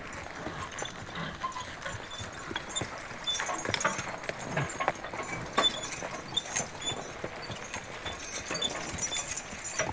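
Draft horses walking on a woods trail: irregular hoofbeats and footsteps.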